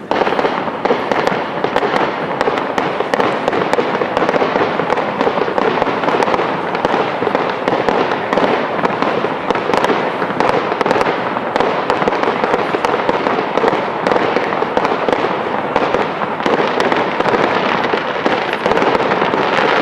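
Professional fireworks display: a dense, continuous barrage of shells bursting and crackling, many bangs a second with no break, growing slightly louder near the end.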